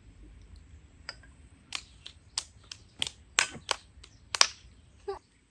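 A run of sharp, irregular clicks and taps, about a dozen in four seconds, the loudest near the end.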